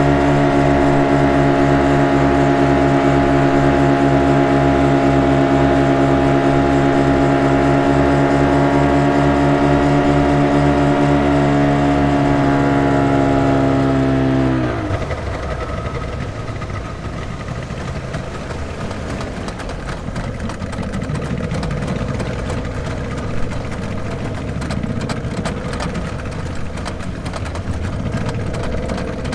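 Motorboat engine running steadily with a strong even drone. About halfway through its pitch sags and it drops away to a quieter, rougher low rumble, like the engine throttling back to idle.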